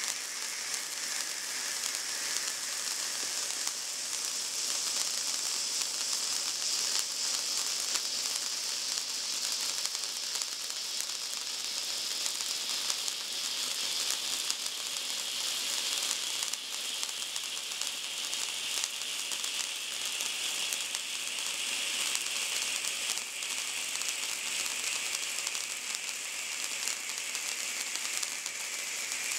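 Three silver 'Traumsterne' indoor spark fountains burning together: a steady spitting hiss of sparks that slowly drops lower in pitch over the second half.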